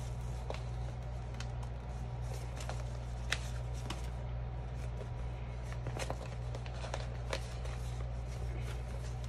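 Steady low electrical hum, with faint scattered clicks and taps from small objects being handled on a desk.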